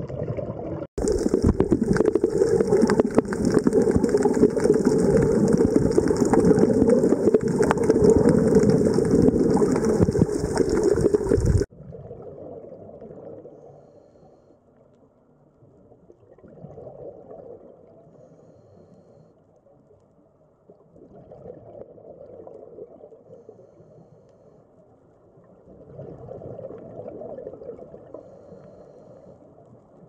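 Underwater water ambience: loud, dense rushing water noise that cuts off abruptly about twelve seconds in. After the cut comes a much fainter, low water sound that swells and fades about every five seconds.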